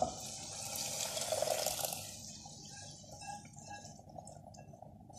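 Hot fried masala scraped off a wok with a spatula into a pot of boiled chickpeas and their cooking water. A knock of the spatula at the start, then a hissing sizzle for about two seconds that fades into faint wet bubbling and small pops.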